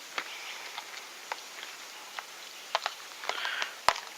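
Scattered light clicks and taps of a utensil in a small bowl as the ginger-scallion sauce is stirred and salted, with one sharper knock near the end, over a faint steady hiss.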